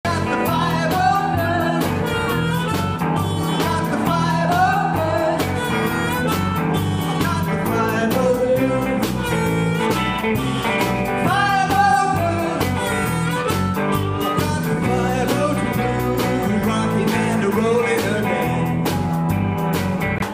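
Live electric blues band: a harmonica plays a lead line of bending notes over electric guitar, bass guitar and drums keeping a steady beat.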